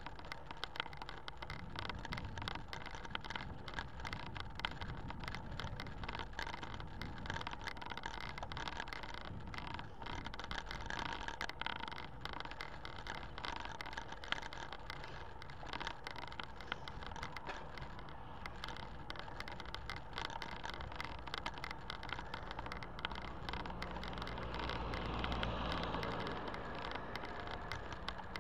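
Riding noise from a bicycle-mounted camera: wind over the microphone and tyres on rough tarmac, with frequent small rattles and clicks. Near the end a car overtakes, its engine and tyre noise swelling and then dropping away.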